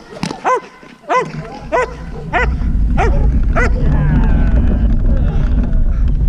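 Protection-trained working dog barking in a steady rhythm, roughly one bark every half-second, six barks in all, stopping a little past halfway. A loud low rumble comes in partway through and carries on to the end.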